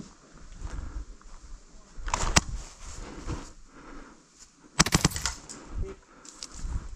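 Footsteps and rustling of a person moving over a leaf- and twig-strewn forest floor. Sharp snaps come in a short cluster about two seconds in and a denser run of several about five seconds in.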